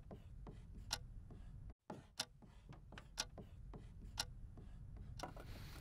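Wall clock ticking faintly, with a louder tick about once a second and softer ticks between.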